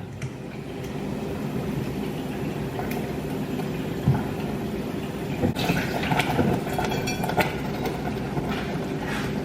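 Steady kitchen background noise, a low hum with an even hiss, with a few light clicks and knocks from about halfway through.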